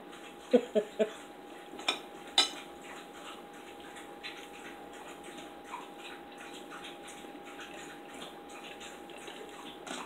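A metal fork clinks against a dinner plate, with two sharp clinks about two seconds in, then only a few faint ticks over a faint steady hum.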